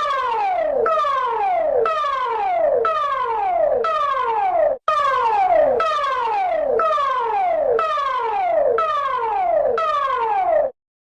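Electronic alarm tone made of falling pitch sweeps, each dropping steeply in well under a second and repeating about once a second. It breaks off briefly about five seconds in, resumes, and stops shortly before the end.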